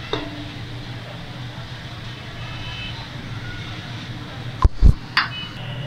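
Sliced onions scraped off a plate into a dry pressure cooker, over a steady low rumble. Two heavy knocks come about four and a half seconds in.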